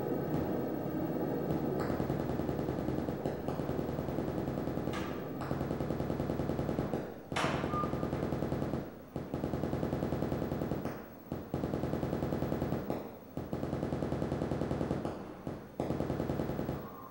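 A fast, machine-gun-like rattle of clicks in blocks of about two seconds, broken by short gaps, with a high sweep falling in pitch about seven seconds in.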